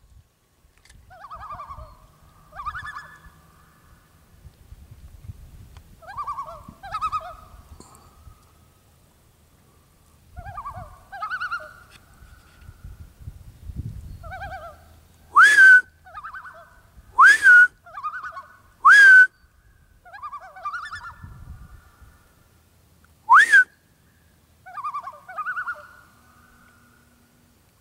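Common loons calling on the water with quieter quavering tremolo calls, answered by a person's loud, close whistled loon imitations: a sharp rising note held briefly, four times, the last one apart from the others.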